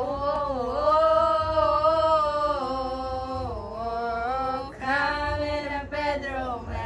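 A woman's voice singing long, held wordless notes with no accompaniment, in two phrases with a short break between them.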